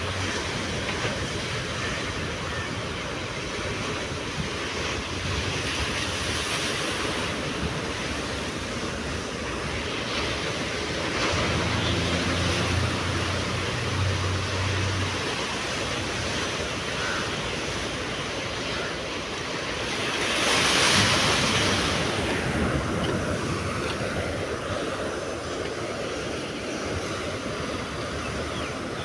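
Sea surf washing and breaking on a rocky shore, a steady rush with wind on the microphone; one wave breaks louder about two-thirds of the way through.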